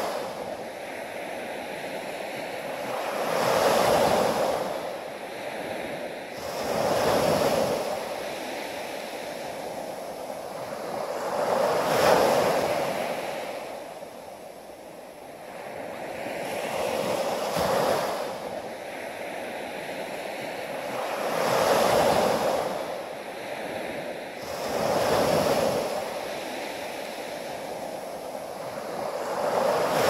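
Sea waves breaking and washing up a sandy beach. The surf swells and fades in about seven surges, a few seconds apart.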